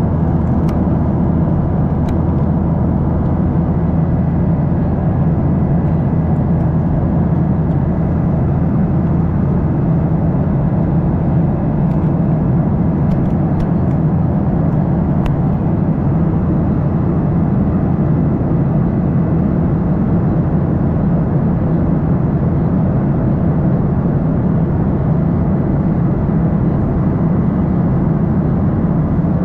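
Steady cabin drone of a Boeing 737-800 in flight, heard from a window seat beside the wing: the CFM56-7B turbofan engines and airflow make a constant low hum and rush. A few faint ticks come around the middle.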